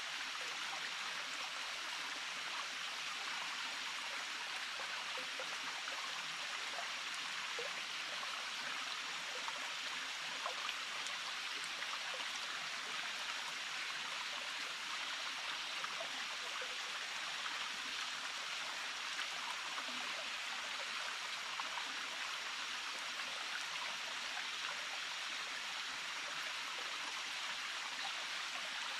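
Small stream flowing: a steady, unbroken rush of running water.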